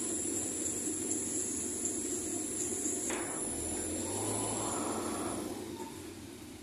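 Bus running along the road, heard from inside: a steady engine and road rumble with a thin high whine over it. The engine note swells briefly about halfway through.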